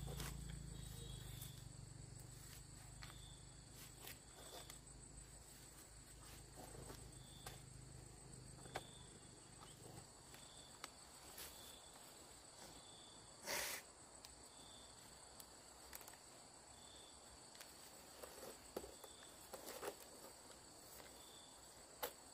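Insects chirping and buzzing steadily, with a low hum that fades out about ten seconds in. Scattered light clicks sound throughout, with one louder knock a little after the middle.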